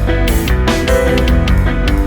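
Background rock music with electric guitar and drums.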